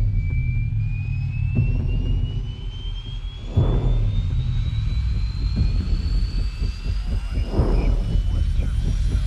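Movie-trailer sound design: a deep aircraft-engine rumble under a thin whine that rises slowly in pitch, with a heavy whooshing hit about every four seconds.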